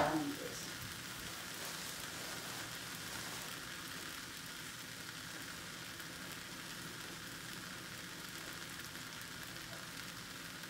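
Shaved beef under melting cheese slices sizzling faintly and steadily on an electric griddle set to warm, after a short knock right at the start.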